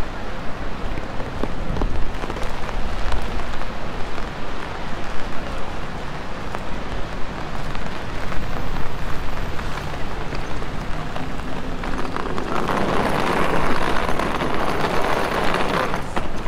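Steady rain falling on a city street, a continuous hiss flecked with faint ticks of drops. About three-quarters of the way through, a louder rush of hiss swells for a few seconds and then drops back.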